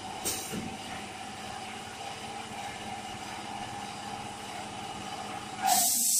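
Plastic bottle bagging machine for 340 ml milk bottles running with a steady hum and a held whining tone. There is a brief hiss about a quarter second in and a loud hiss near the end.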